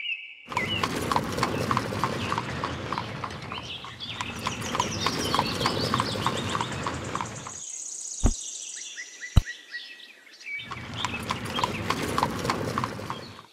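Hooves clip-clopping at a walking pace, about three to four steps a second, over the rumble of a cart rolling: the sound of draught animals pulling a cart, laid over toy oxen. The hoofbeats stop for about three seconds in the middle, with two short thuds, then start again.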